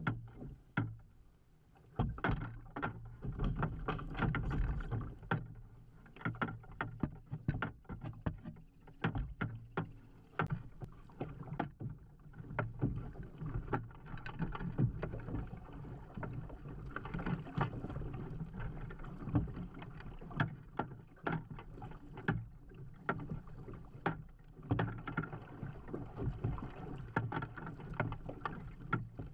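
Small waves slapping and knocking irregularly against the plastic hull of a sit-on-top fishing kayak, over a steady low rumble of water and wind.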